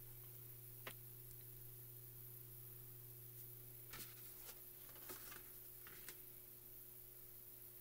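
Near silence: a faint steady hum, with a few soft taps and rustles of card stock being handled, one about a second in and several between about four and six seconds.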